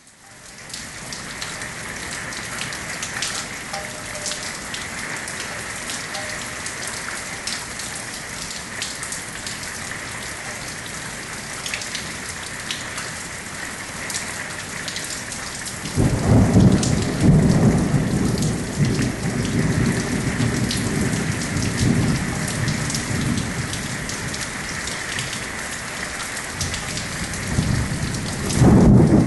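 Steady rain falling, a hiss full of small drop clicks that fades in at the start. About halfway through a low rumble of thunder sets in suddenly and keeps rolling, swelling again near the end.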